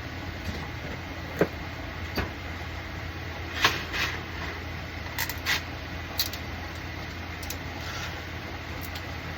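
A steady machine hum with a scattering of short, sharp clicks and clacks, about seven in the first six seconds: hard 3D-printed plastic parts being handled, snapped and broken free of their supports.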